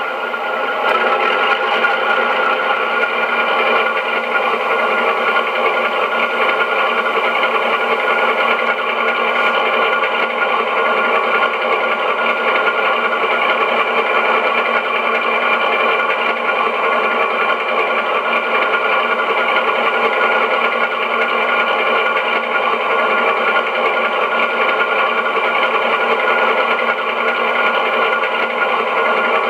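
Recorded sound of a British Rail Class 52 Western's twin Maybach diesel engines running steadily, played by a model locomotive's ESU LokSound XL sound decoder through a small speaker, so it lacks any deep bass. It grows slightly louder about a second in.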